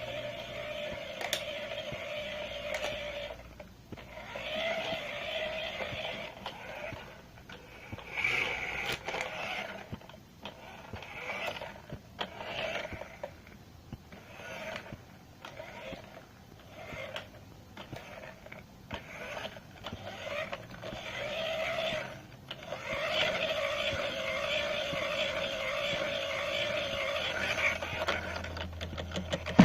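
Small electric motor and gears of a remote-control toy car whirring in stop-start bursts. There are runs of a few seconds at the start and near the end, and a string of short bursts about a second apart in between.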